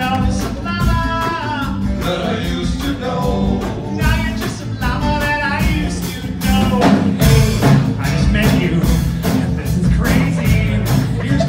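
Live band playing an upbeat rock-and-roll song on acoustic guitars, bass guitar and drum kit, with a steady drum beat.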